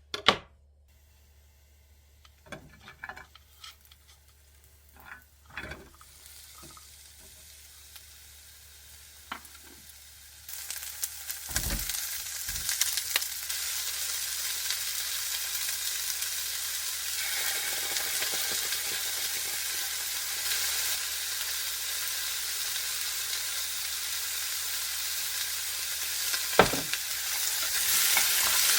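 A sharp click, then a few light knocks, then from about ten seconds in food sizzling and frying in hot oil in a pan, loud and steady, with the odd knock of a utensil.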